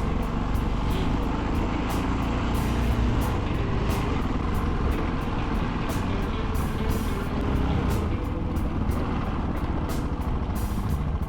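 Yamaha XT660Z Ténéré's single-cylinder engine running steadily under way, with scattered short clicks and knocks over it.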